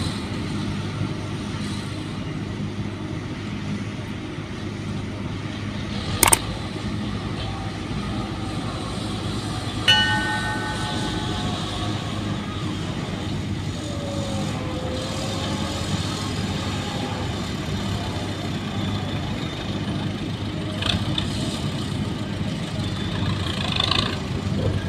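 Diesel engines running steadily, from a farm tractor pulling a trailer and a wheeled excavator. A sharp click comes about six seconds in, and a brief higher tone about ten seconds in.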